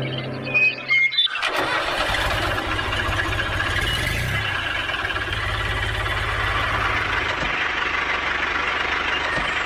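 An engine starts about a second and a half in and then keeps running with a fast, even low pulsing under a hissy rattle.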